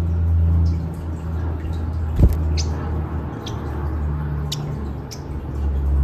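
Pacific parrotlet giving a few short, high chirps, spread out from about two seconds in, over a steady low hum.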